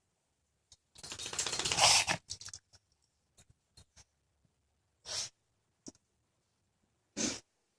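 A pet reverse sneezing: a loud run of rapid, noisy inhalations starting about a second in and lasting about a second, then a few small clicks and two shorter noisy breaths later on.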